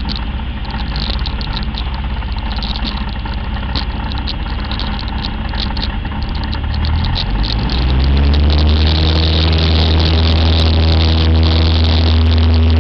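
Cessna 172's piston engine and propeller going from low power to full power: about seven seconds in the engine note rises in pitch, then holds a loud steady drone, as when the throttle is opened for a takeoff roll. Before that, rumbling and rattling of the plane rolling along the runway at low power.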